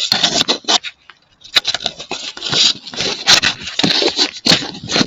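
Footsteps crunching in fresh snow at a walking pace, a crunch roughly every half second or so.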